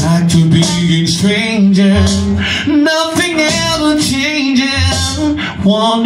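A man sings live into a microphone over a reggae backing track with a deep, recurring bass line.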